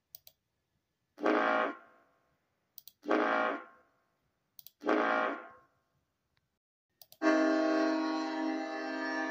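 Ship's horn sound effect: three short blasts about two seconds apart, then a long held blast starting about seven seconds in. A pair of faint clicks comes just before each blast.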